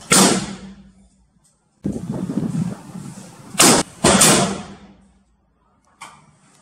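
Muzzle-loading black-powder guns firing: four loud shots at uneven intervals, the last two about half a second apart, each trailing off in a rumbling decay.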